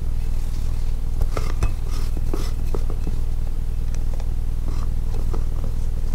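Fingertips picking and scraping at the ring-pull tab of a beer can: scattered small clicks and scrapes, over a steady low hum.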